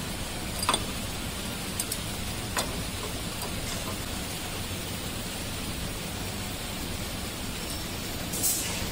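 Steady background hiss with a few faint light clicks, as the metal fastening parts of a DTG printer's z axis are handled and removed, and a brief louder rustle near the end.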